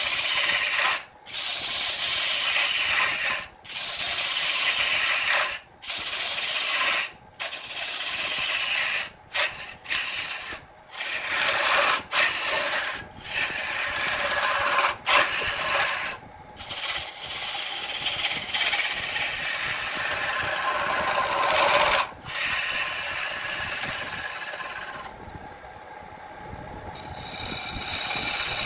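Wood lathe turning tool cutting into a spinning wood blank, a loud rough shaving sound that breaks off briefly every second or two as the tool comes off the wood and goes back in. Near the end the cutting stops, leaving the lathe motor running with a steady whine.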